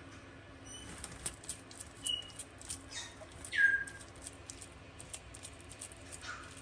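Frilled lizard chewing food in its jaws: an irregular run of sharp crunching clicks. A few short high chirps sound over it, the loudest a falling chirp about halfway through.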